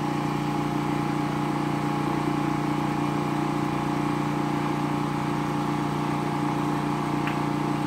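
Electric water pump motor running with a steady, even hum as it pumps water up to fill the tank.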